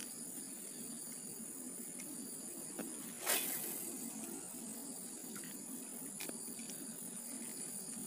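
Steady insect drone, high-pitched, over a low hum, with a few faint clicks and one brief, louder rushing noise about three seconds in.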